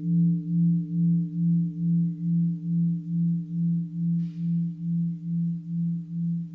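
Mindfulness bell ringing on after a strike: a low, steady tone that pulses a little over twice a second and slowly fades.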